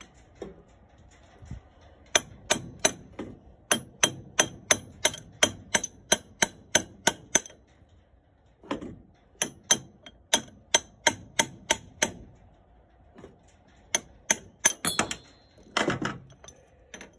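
Hammer blows on a steel drift punch driving an old sealed ball bearing out of a mower blade spindle housing. The blows come about four a second in two long runs, then a few scattered ones, with a short metallic ring near the end.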